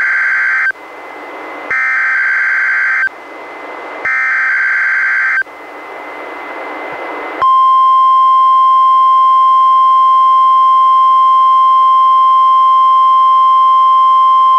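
NOAA Weather Radio test alert played through a weather radio receiver: the end of one SAME header data burst and two more warbling digital screeches, each over a second long, with radio hiss between them. About seven seconds in, the steady, louder 1050 Hz warning alarm tone starts and holds.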